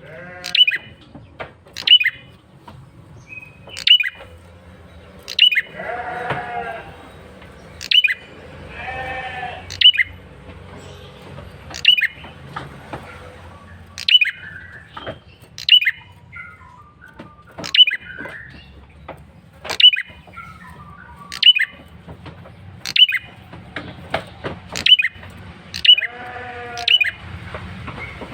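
Male prenjak kepala merah calls: a sharp, high call repeated about every two seconds. Twice there is a run of falling notes, and three times a lower, longer call with several tones in it.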